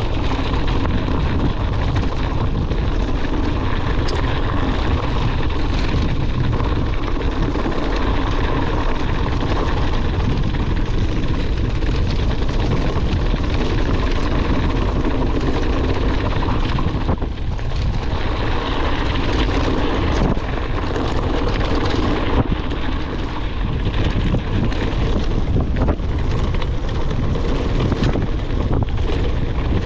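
Steady rush of wind across an action camera's microphone while riding a mountain bike, with the rumble and light rattle of the bike rolling over rough trail.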